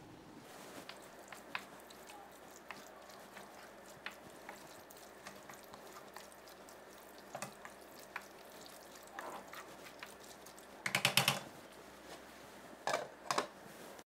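Vegetable caponata of eggplant, peppers and tomato cooking gently in a nonstick frying pan, with scattered soft pops and ticks. A wooden spoon stirs and scrapes through the vegetables in two louder bursts near the end.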